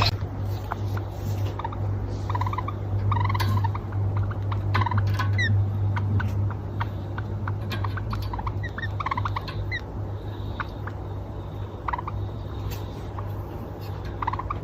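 Java sparrow giving scattered short chirps and peeps, a few of them quick falling notes, with soft clicks in between, over a steady low hum.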